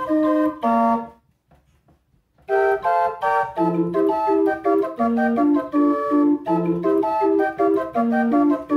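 Walter Höffle 20/67 hand-cranked 20-note pipe organ playing a lively reel with short repeated bass notes. The music breaks off for about a second and a half a second in, then carries on.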